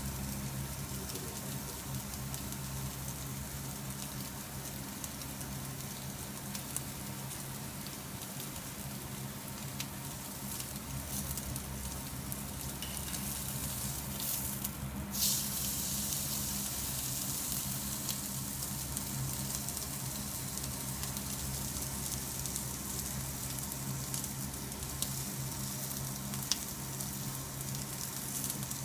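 Beef steak sizzling on the hot grate of a commercial charcoal-and-gas grill, with scattered small pops and crackles. About halfway through it is turned over with tongs and the sizzle flares up loudly for a moment as the raw side hits the grate. A steady low hum runs underneath.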